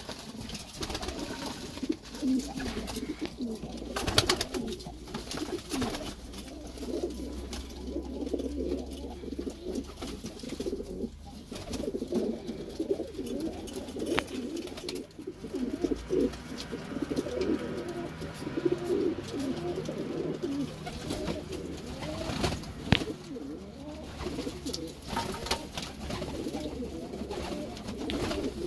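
Domestic pigeons cooing continuously, the calls overlapping. A few short sharp knocks or flutters break in, the loudest about three quarters of the way through.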